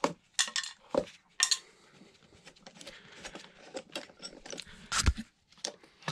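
Steel screw clamps clinking and knocking against the scooter wheel and its wooden support as they are handled, a string of sharp metallic clicks with a heavier thump about five seconds in.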